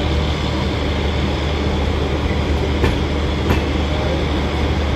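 Rajdhani Express air-conditioned passenger coaches rolling past at speed: a steady deep rumble of wheels on rail, with a couple of sharp wheel clicks in the second half.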